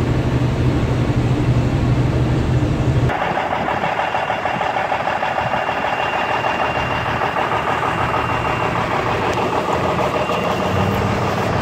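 A semi-truck's engine drones low and steady inside the moving cab. About three seconds in this cuts to the outside of the parked Freightliner, where its mechanical Cummins N14 turbocharged six-cylinder diesel idles steadily.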